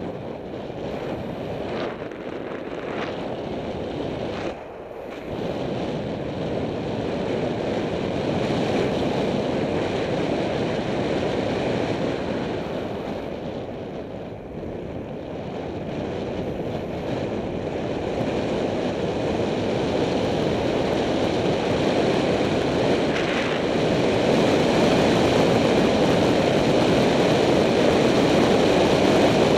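Wind rushing over a Contour HD helmet camera's microphone on a road-bike descent, growing louder as speed builds. It eases briefly about five seconds in and again around halfway through, then rises to its loudest in the last few seconds.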